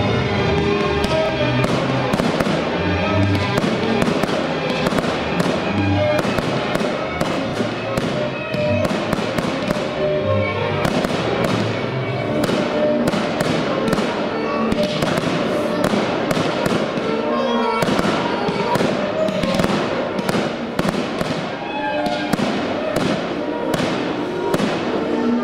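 Fireworks display: aerial shells bursting in quick succession, many bangs and crackles close together, with music playing underneath.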